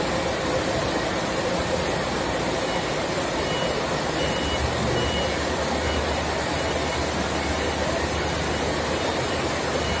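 Forklift engine running steadily as it holds and draws out the concrete pump's delivery cylinder; a deeper engine note comes in about halfway through. A faint short high beep repeats over the second half.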